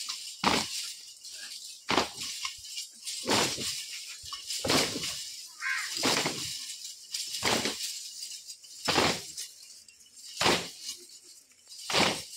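A group of children's handheld jingling drill instruments struck together in unison, a crash of jingles about every one and a half seconds, keeping time for a drill.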